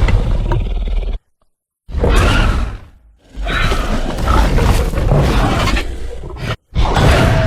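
Loud roars of a fictional kaiju monster, Blacktaurus, made as a designed sound effect: several long, noisy roars with a deep rumble, each cut off by a brief moment of silence.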